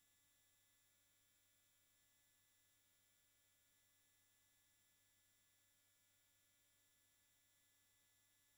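Near silence: only a faint, steady electronic hum and hiss, with no sound events.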